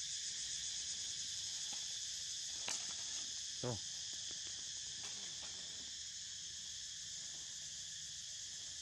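Steady, high-pitched chorus of insects droning without a break. About a third of the way in there is one short, low call.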